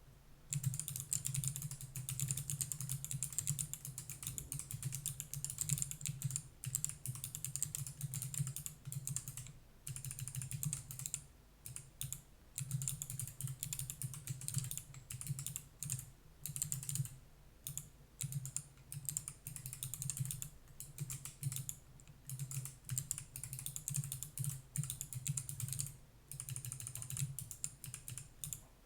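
Typing on a Skeletyl split mechanical keyboard with NovelKeys x Kailh BOX Jade clicky switches: a fast, continuous run of sharp key clicks, broken by a few short pauses.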